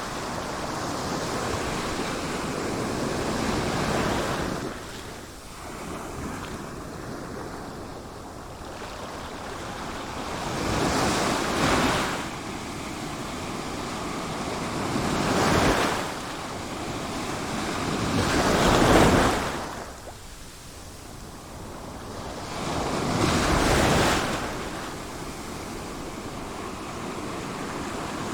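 Sea waves breaking on a shore: a steady wash of surf that swells and falls back five times, every four to seven seconds.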